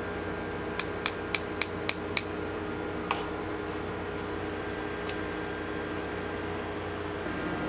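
A metal spoon tapped six times in quick succession, about four light taps a second, to shake topping granules off over a candied apple, then one more tap about a second later, over a steady background hum.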